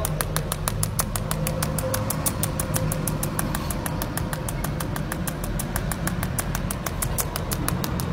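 Pulsed TIG 'cold welding' arc from a Jasic TIG 300S welder, ticking in a rapid, even rhythm several times a second over a steady low hum.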